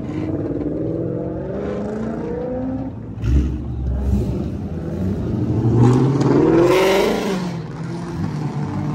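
Sports cars pulling away one after another, their engines revving with rising pitch. There is a short thump about three seconds in, and the loudest rev comes around six to seven seconds in.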